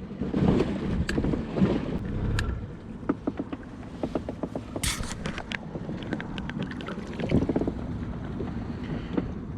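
Small boat on open water: wind on the microphone and water against the hull, with a scatter of small clicks and knocks about halfway through.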